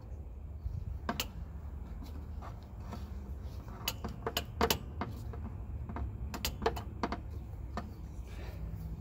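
Irregular sharp metal clicks and clinks of locking pliers working a spring hose clamp onto a rubber power steering hose, over a low steady hum.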